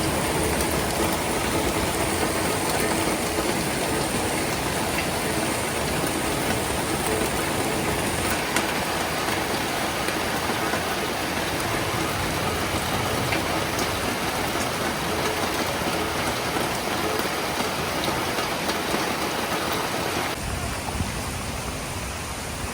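Floodwater of a flash-flooded creek rushing steadily, a dense, even wash of water noise that changes slightly in character about 8 seconds in and again near the end.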